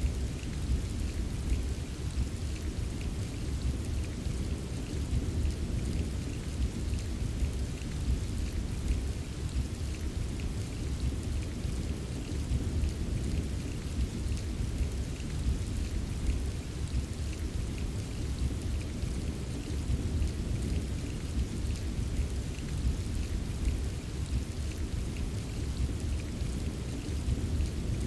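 Steady heavy rain ambience: a continuous deep rumble underneath with fine raindrop ticks on top, unchanging throughout with no single loud crack.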